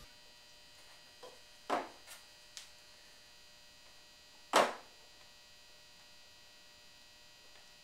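Screwdriver working at a screw in a brass rifle buttplate: a handful of short clicks and knocks, the loudest about four and a half seconds in, over a steady low hum.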